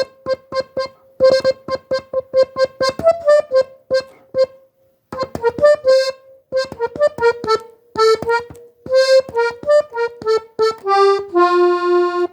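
Diatonic button accordion in G, played as many short, detached notes, mostly repeated on the same pitch, then after a brief pause a melody line that steps downward and ends on a longer held lower note near the end.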